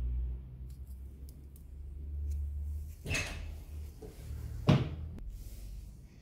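Handling noise at an electronics workbench: a low rumble with two sharp knocks, about three seconds in and again about a second and a half later, the second the loudest.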